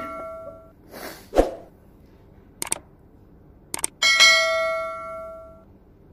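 Subscribe-button sound effect: a whoosh ending in a thump, two pairs of mouse clicks, then a notification bell ding that rings out and fades over about a second and a half. The tail of an earlier ding fades out at the start.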